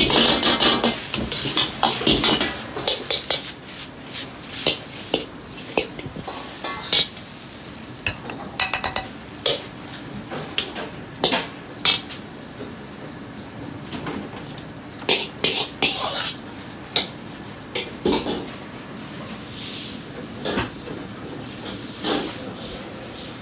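A metal ladle clanking and scraping against an iron wok as fried rice is stir-fried and tossed over a gas flame, a rapid clatter for the first few seconds. After that come scattered clinks and knocks of kitchen utensils.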